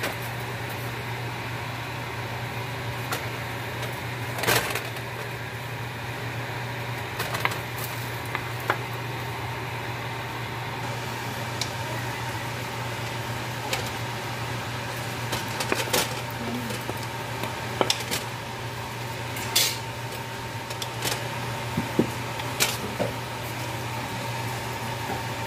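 Spatula scraping and knocking against a large metal wok as stir-fried noodles are tossed, with irregular sharp clanks scattered through, over a steady low hum.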